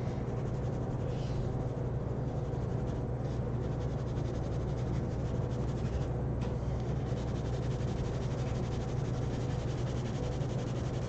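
Pencil shading on drawing paper: quick, repeated scratchy strokes of graphite filling in a dark area, over a steady low hum.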